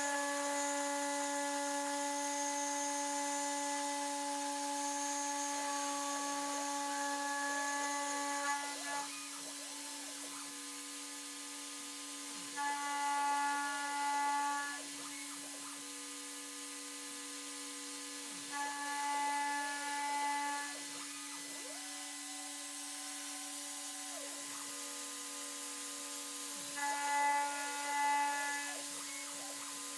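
DIY CNC machine spindle running with a steady whine while a small cutter machines an aluminium plate. Higher whining tones come and go in stretches of about two seconds, three times in the second half, as the tool travels around the part.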